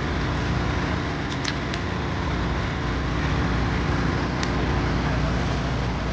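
Steady outdoor street-market din with a low hum, and a few light clicks of scissors and tongs cutting crispy fried chicken, a cluster of them about a second and a half in and one more past the midpoint.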